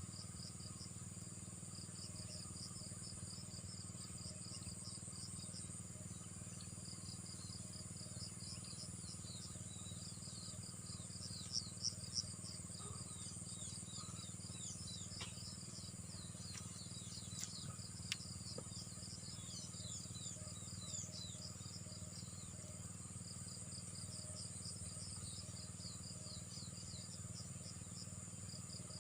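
Outdoor ambience: a steady, high insect drone, with strings of quick high chirps over it. A few sharp clicks come about twelve and eighteen seconds in.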